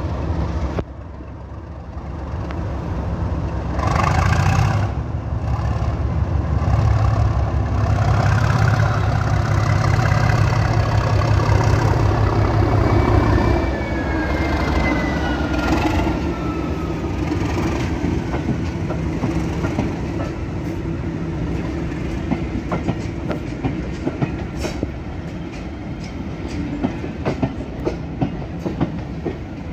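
Class 37 diesel locomotive's English Electric V12 engine working loud and steady as it pulls its coaches past, building over the first few seconds, with a high whine falling in pitch as the locomotive goes by. Then the coaches roll past with regular clickety-clack of wheels over rail joints.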